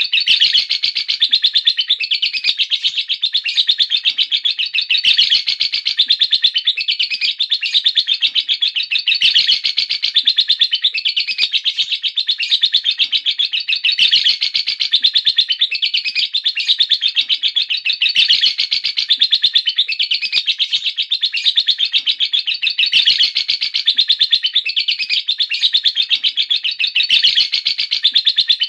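Lovebird 'ngekek': a long, unbroken stream of rapid, high, shrill chattering that swells and eases every few seconds without pausing.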